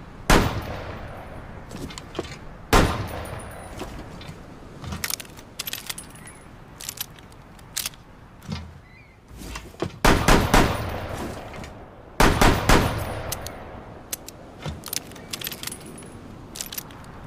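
LFP586 revolver shots and handling: a single shot, another about two and a half seconds later, then two quick runs of several shots around the middle and two-thirds of the way in. Small metallic clicks and rattles of the revolver's action come between the shots.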